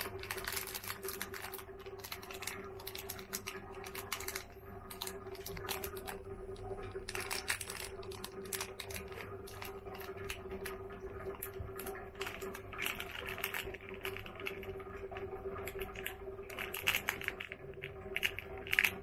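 Thin clear plastic wrapper crinkling and crackling in the fingers as a small packet is handled and opened, in quick irregular clicks. A steady hum sits underneath.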